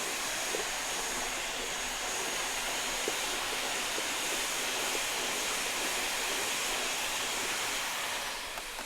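Vacuum cleaner running steadily: an even rushing hiss of air with a faint high whine from the motor and a few small ticks. It dips slightly near the end.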